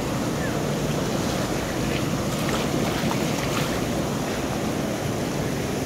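Floodwater rushing through a concrete sluice gate and churning downstream, a steady, heavy rush of turbulent water with no let-up.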